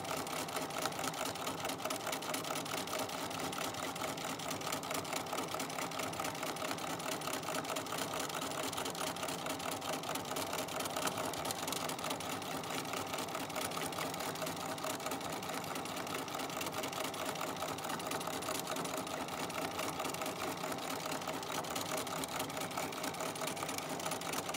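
Domestic electric sewing machine running fast and steady, its needle stitching through a layered mini quilt in free-motion quilting, with the feed dogs dropped and a free-motion foot on.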